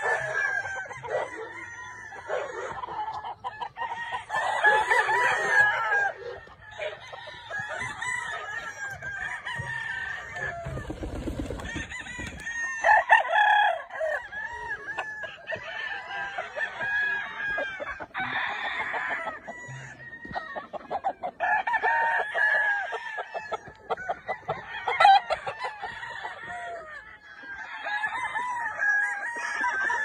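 Gamefowl roosters crowing and clucking, many calls overlapping one another throughout.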